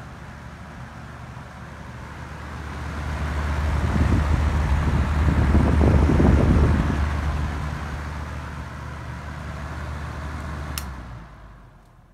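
Antique NuTone wall exhaust fan running, its Morrill unit-bearing motor giving a steady low hum under a rush of air. In the middle the rush grows much louder and gusty as the blown air hits the microphone up close. About eleven seconds in there is a click, the hum cuts off, and the air noise fades away as the fan winds down.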